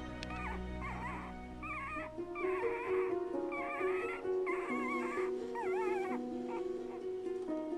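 Newborn Shiba Inu puppy crying in about seven high, wavering calls, calling for its mother because it is hungry. Soft background music plays underneath.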